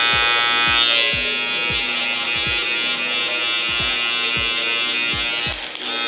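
Corded electric hair clippers with a number three guard buzzing steadily as they cut the side of the head, dipping briefly near the end. Background music with a steady beat plays underneath.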